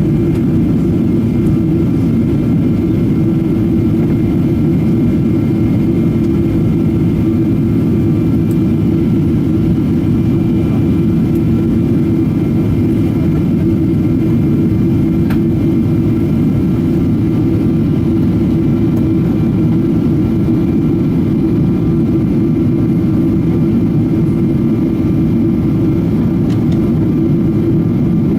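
Steady drone of jet engines and rushing air heard inside the cabin of a Boeing 777-200 on approach, deep and unchanging, with a few faint steady whining tones above it.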